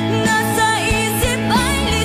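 Music: a Tagalog pop ballad, a voice singing a gliding melody line over steady instrumental accompaniment with a regular beat.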